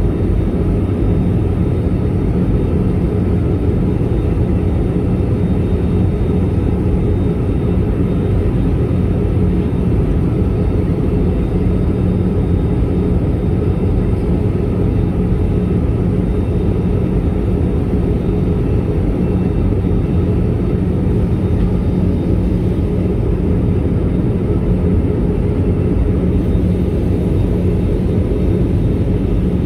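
Steady in-flight cabin noise of an Airbus A320: jet engines and rushing airflow heard from inside the cabin, an unchanging drone with a constant hum in it.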